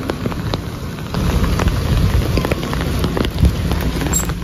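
Rain pattering on an umbrella overhead, with many scattered sharp drop ticks. A low vehicle rumble comes in about a second in, and there is a low thump about three and a half seconds in.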